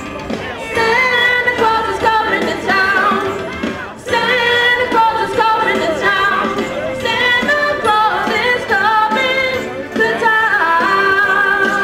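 A boy's high voice singing into a microphone with sliding, ornamented runs, over live band accompaniment.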